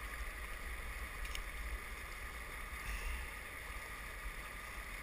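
Wind rumbling on the microphone over a steady hiss of moving river water, with a faint click about a second in.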